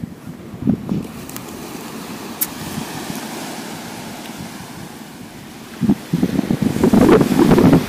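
Wind buffeting the microphone over the steady wash of surf, with the buffeting much louder for the last two seconds.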